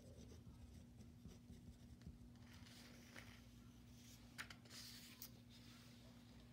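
Near silence: a ballpoint pen writing faintly on paper, then a few soft paper rustles and small clicks about halfway through as the sheet is shifted on the desk, over a faint steady low hum.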